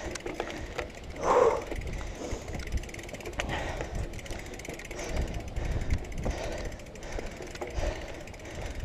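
BMX bike rolling down a rough rocky dirt slope: tyres crunching over the stones and the frame rattling with the bumps, over a low rumble. A short louder burst comes about a second and a half in.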